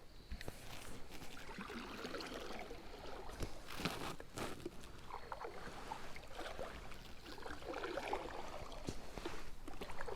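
Water lapping and trickling around a kayak, with small knocks and clicks from the hull and gear.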